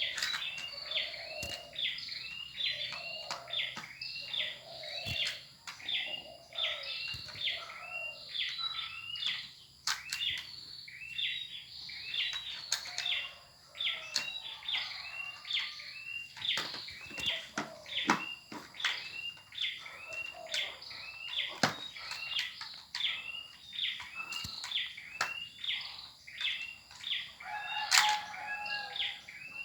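A bird chirping over and over, a short rising chirp repeated about once a second, with scattered sharp clicks in between.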